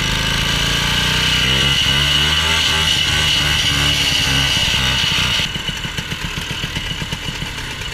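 Old snowmobile's two-stroke engine running close by, its revs wavering up and down for a few seconds, then easing off to a lower idle about five and a half seconds in.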